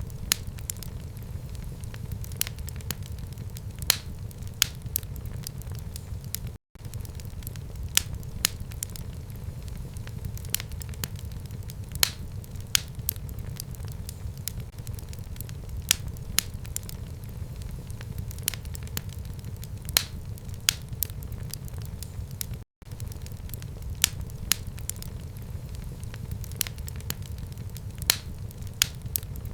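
Fire burning in a home fireplace: a steady low rumble with frequent sharp, irregular crackles and pops. The sound cuts out for an instant twice.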